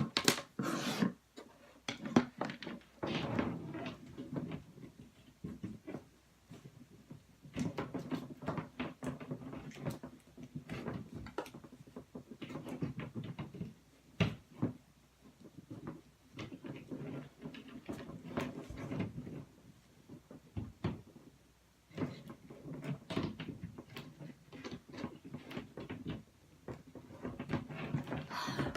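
Handling noise: scattered knocks, bumps and rustling as furniture and objects are moved about and a hair straightener is set up to be plugged in.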